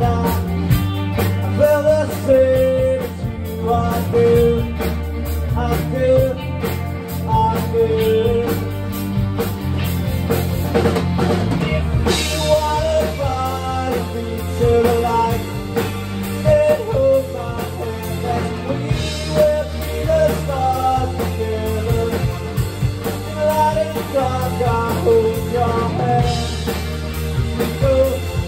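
Rock band playing live: electric guitars and drum kit with a sung lead vocal, and cymbals swelling up about twelve seconds in.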